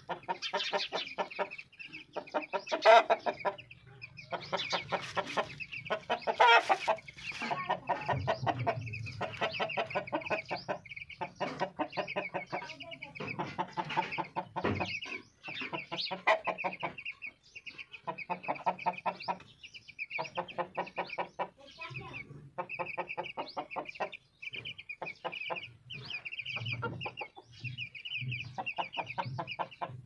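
Chickens clucking in repeated runs of quick, short pulses, with chicks peeping in a steady high twitter.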